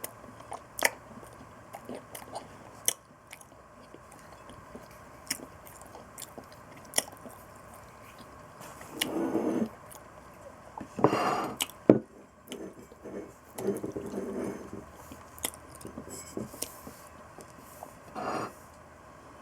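A person chewing food close to the microphone, with many small wet mouth clicks and a few longer, louder bursts of chewing.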